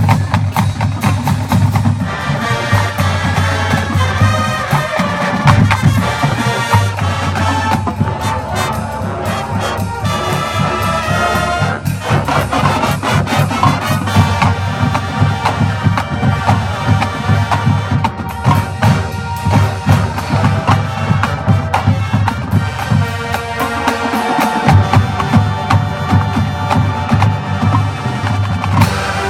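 A university marching band plays a loud brass-and-percussion piece, with trumpets and trombones over a steady drum beat.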